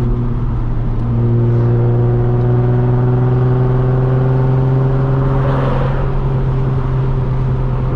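A Z sports car's engine and exhaust heard from inside the cabin with the windows open while driving. The engine note rises gradually as the car pulls, then drops about six seconds in as the throttle eases or a gear changes.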